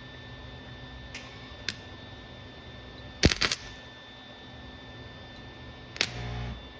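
A few sharp metallic clicks and knocks from welding work, with a loud cluster of knocks about halfway through. Near the end comes one more sharp knock followed by a short buzz of about half a second. A steady electrical hum runs underneath.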